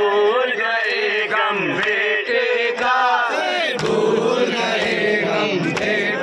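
Crowd of men chanting together in a Muharram mourning chant, many voices at once, steady and unbroken.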